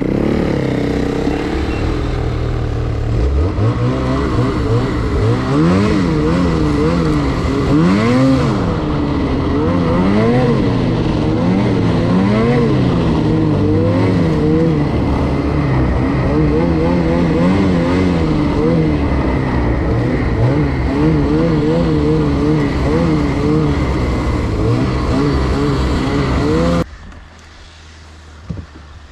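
Snowmobile engine heard from on board, its pitch rising and falling over and over as the throttle is worked on the ride, over steady wind and track noise. About 27 seconds in the sound drops away suddenly to a faint low hum.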